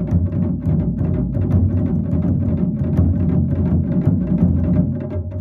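Japanese taiko drum ensemble playing fast, dense, continuous strokes on many drums at once, deep and loud. Near the end the low drums drop away, leaving lighter, sharper strokes.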